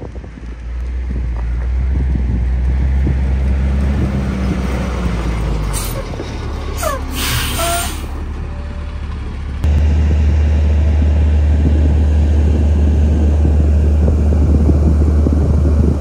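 Fire engine's engine running with a steady low rumble, a short sharp hiss of air about seven seconds in, and the rumble suddenly louder from about ten seconds on.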